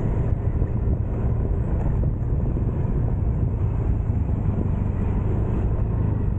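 Motorcycle riding at a steady speed: the engine's steady running mixed with low wind rumble on the bike-mounted microphone.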